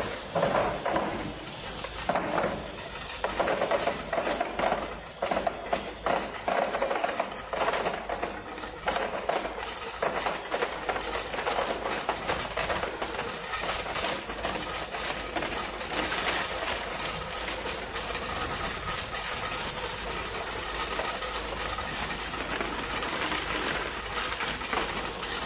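Tube ice machine harvesting: freshly cut ice tubes clatter out of the chute into a plastic basin over the machine's running noise. The clatter comes in irregular bursts through about the first half, then gives way to a steadier mechanical noise with a faint whine.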